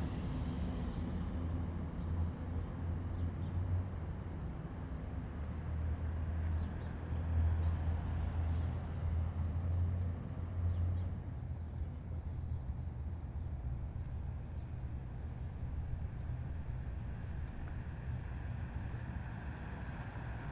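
Heavy military vehicles driving past in a column, their engines making a deep steady drone that grows weaker a little past halfway.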